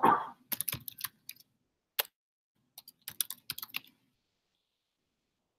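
Typing on a computer keyboard: a quick run of key clicks, a single key about two seconds in, then another run that stops about four seconds in. The tail of a cough is heard at the very start.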